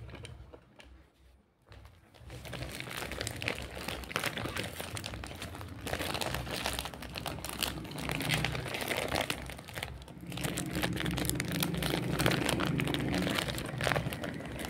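Clear plastic packaging bag crinkling and rustling as hands work a plastic toy ice cream stand out of it, starting about two seconds in.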